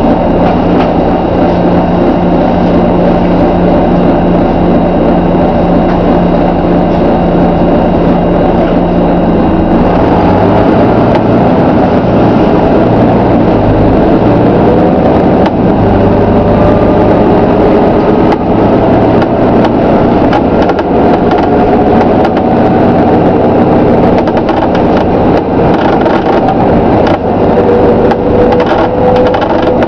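Volvo B9TL double-decker bus with Wright Eclipse Gemini body on the move, heard on board: the engine runs under load with rising whines as it pulls away, while the body gives repeated creaks and clicks.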